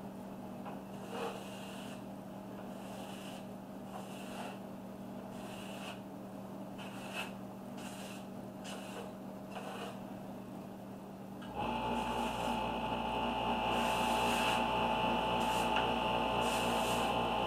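Airbrush spraying paint through a stencil onto a tumbler in short hissing bursts, one after another, over a low steady hum. About eleven and a half seconds in, a motor starts up and runs with a louder steady hum.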